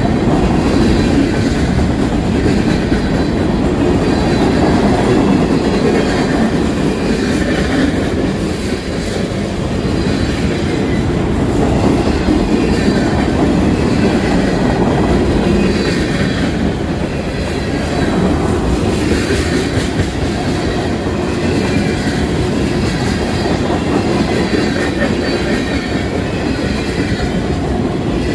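A Union Pacific mixed freight train's cars rolling past close by: a steady, loud rumble of steel wheels on the rails.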